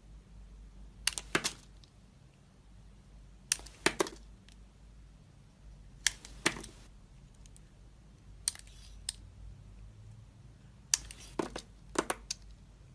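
Knife carving a bar of dry soap: five short clusters of crisp crackling cuts, about one every two and a half seconds, the fourth fainter than the rest.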